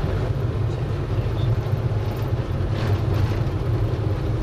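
A bus driving along the road, heard from inside the cabin: the engine and tyres make a steady low drone.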